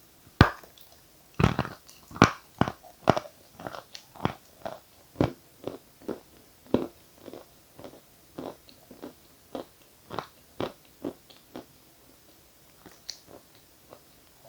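Close-miked biting and chewing of dry edible chalk: a sharp bite, then crisp crunches about two a second that grow fainter toward the end.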